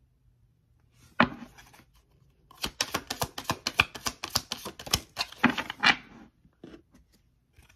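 Tarot deck being shuffled by hand: a single card snap about a second in, then a rapid run of clicking card edges for about three seconds, trailing off into a few scattered clicks.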